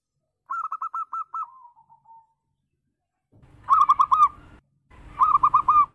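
Zebra dove (perkutut) cooing: three quick phrases of rapid, stuttering coo notes, the first trailing off into a softer falling coo, the last two louder.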